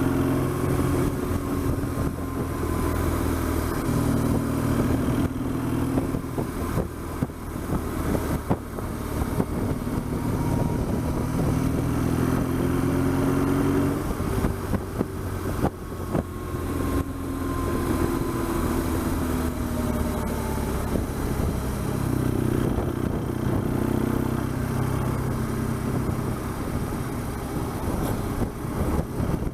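BMW R1200GS boxer-twin motorcycle engine running under way, its note rising and falling as the bike speeds up and slows.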